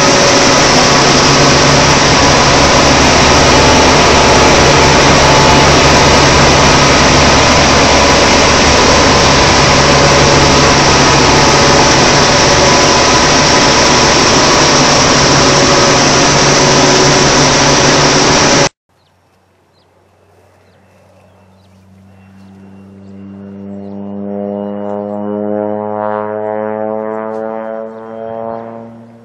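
A seed-cleaning machine runs loud and steady, then cuts off abruptly about two-thirds of the way through. A single-engine crop-duster plane then approaches: its propeller drone grows louder with a slowly falling pitch and drops away as it passes near the end.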